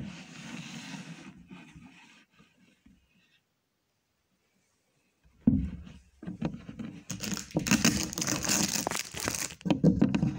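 Handling noise from a camera on a selfie stick being gripped and moved: rubbing, scraping and small knocks on the microphone. A quiet gap of about three seconds follows the first rustling, then a thump, then dense rustling and clicking through the last few seconds.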